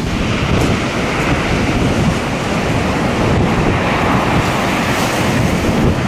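Rough sea: heavy waves surging and breaking over a concrete harbour wall, steady and loud, with strong wind buffeting the microphone.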